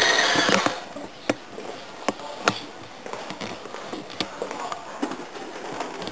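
Radio-controlled scale Hummer truck's motor and drivetrain whining as it drives, the whine fading out in the first second. After that it is quieter, with a few sharp clicks and knocks.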